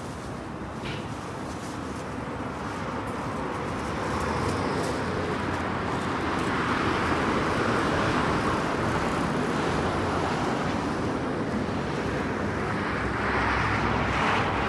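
City street traffic: the steady noise of vehicles passing, building up over the first few seconds and swelling again near the end.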